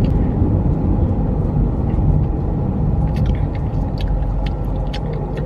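Road and engine noise inside a moving car's cabin, a steady low rumble, with a few light clicks and taps about three to five seconds in.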